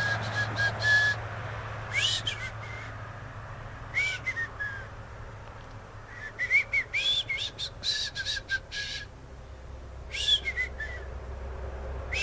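A songbird calling outdoors: short bursts of quick chirpy, up-and-down whistled notes about every two seconds, with a busier run of notes in the middle. A faint steady low hum runs underneath.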